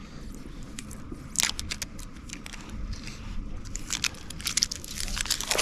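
Protective plastic wrap being torn and peeled off a brand-new fly rod: irregular crinkling and crackling, a few sharp crackles at first, then denser and louder in the last couple of seconds. Low wind rumble on the microphone underneath.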